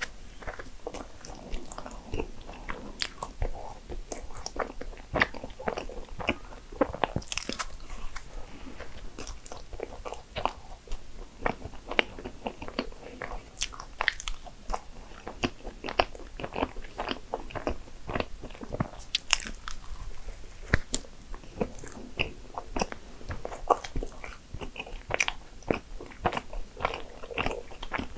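Close-miked eating sounds of a person biting into and chewing a cream-filled maritozzo bun: soft, wet chewing with many irregular clicks throughout.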